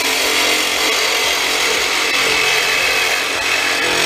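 Reciprocating saw (sawzall) running at steady speed, its blade cutting through the thin sheet-metal housing of a duct booster fan, a dense, even buzz that stops near the end.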